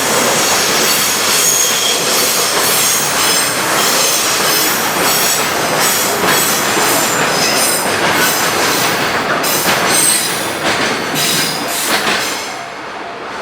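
Freight train wagons rolling past on the rails, wheels clacking at a brisk uneven rhythm and squealing with high ringing tones. The noise drops near the end as the last of the train goes by.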